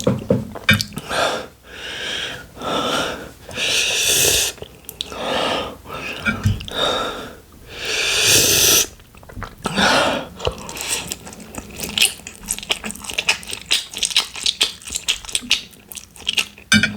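A person breathing hard through the mouth, a series of loud, wheezing breaths for about the first nine seconds, then rapid chewing for the rest. The heavy breathing is a reaction to the burn of extra-spicy instant noodles.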